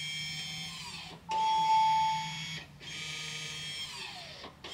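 The rear electronic parking brake motors whine in three runs, each winding down in pitch as it stops, as the scan tool drives the brake back into the locked position after a rear pad change. A steady beep sounds for about a second in the second run.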